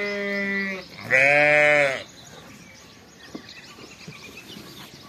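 Lambs bleating: one call ends under a second in, and a second, lower bleat lasting about a second follows. Then only faint background with a few light ticks.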